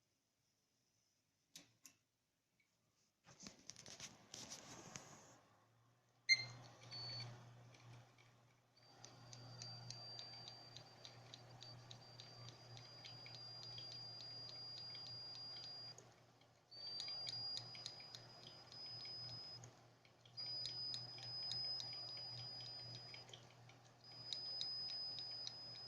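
Seagate hard drive running with a thin high-pitched whistle over a low hum and fast regular ticking: the whistle and knock of a noisy drive. The sound starts about three seconds in, with a sharp click at about six seconds. It then stops and restarts several times.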